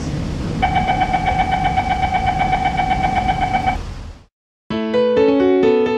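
Door-closing warning tone of a Downtown Line C951 train: a steady, rapidly pulsing high beep lasting about three seconds over the rumble of the train interior. The rumble then fades out, and after a moment of silence electric piano music starts near the end.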